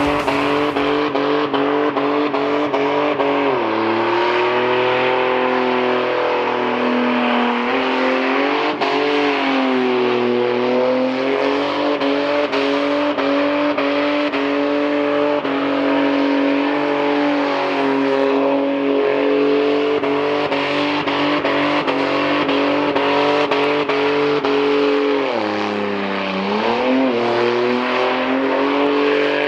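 Car engine held at high revs with a steady note, its pitch dipping and recovering twice.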